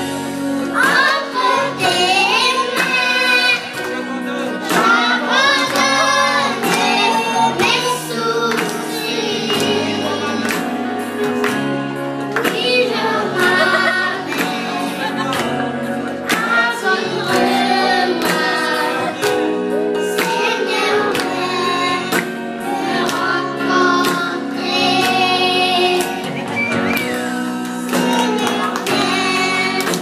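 A group of children singing a song together into microphones, amplified, over electronic keyboard accompaniment with a steady beat.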